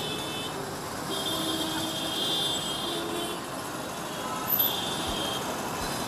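Busy street traffic: engines and tyres running as a steady wash, with vehicle horns sounding over it, one long blast from about one to three seconds in and a shorter one near five seconds.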